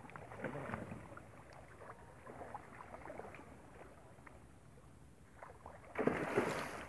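A hooked fish thrashing at the water's surface: small scattered splashes, then one big splash about six seconds in.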